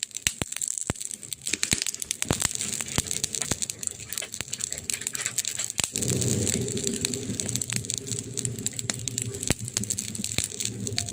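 Wood fire crackling, with many sharp pops and snaps. About halfway through, a fuller, steadier low sound joins the crackle.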